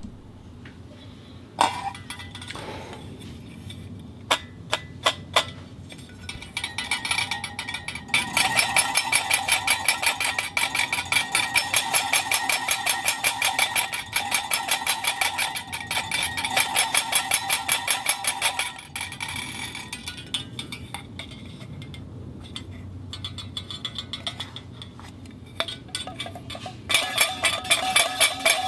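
Clockwork spring mechanism clicking in a fast, even ratchet run with a metallic ring. It is preceded by a single strike and a few separate clicks, and starts up again near the end.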